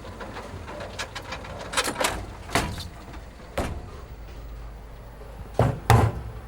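A series of separate knocks and thumps, irregularly spaced, with the loudest pair close together near the end.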